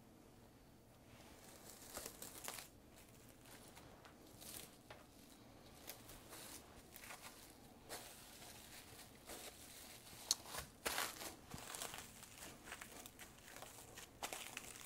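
Plastic cling wrap being pulled, torn and crinkled around pie dough: faint, irregular crinkling and rustling in many short bursts.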